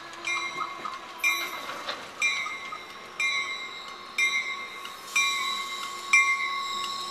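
Metrolink bi-level commuter train rolling into the station, cab car leading, with a bell ringing about once a second over the rumble of the approach.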